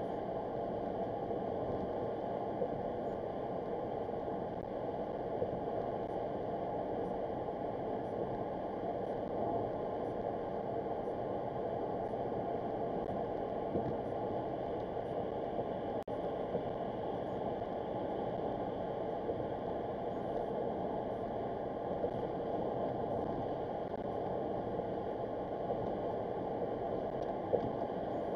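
Steady road noise of a car driving at highway speed, heard inside the car's cabin.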